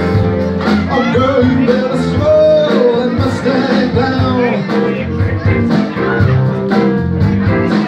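Live band playing an R&B song, with electric guitar and a lead singer, heard through a bar room.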